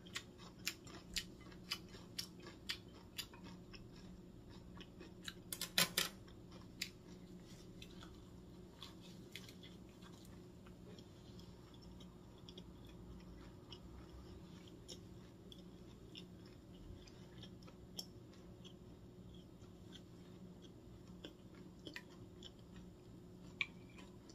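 A person chewing food close to the microphone: a run of sharp, crisp clicks and crunches in the first six or seven seconds, then only scattered ones, over a faint steady low hum.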